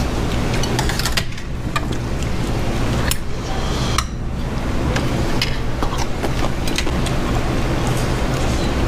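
Metal chopsticks and a ladle clinking now and then against a small stainless bowl and the stew pot, a scattering of sharp clicks over a steady low hum.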